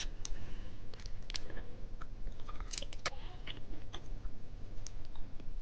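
Chewing and biting on a small chocolate candy, with scattered sharp clicks at irregular intervals.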